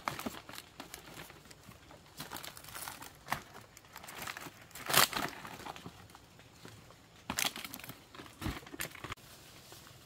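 Fresh palm fronds rustling and crinkling as they are handled and gathered into a bundle, with irregular crackles and one sharper tearing crackle about halfway through.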